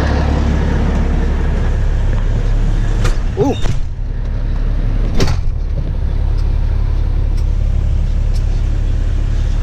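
Farm vehicle's diesel engine running steadily as the vehicle is moved and backed up. There is a soft click about three seconds in and a single sharp knock about five seconds in.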